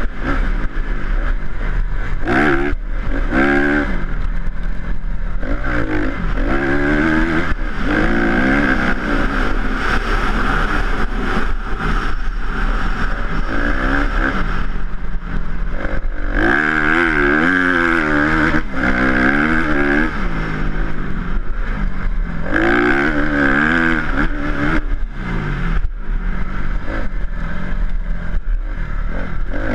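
Honda CRF250R dirt bike's single-cylinder four-stroke engine revving up and down over and over as the rider works the throttle and gears along a dirt track.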